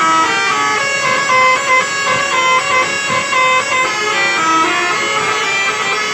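Tour bus basuri horn, a multi-trumpet musical air horn, playing a melody of quickly changing notes without a break.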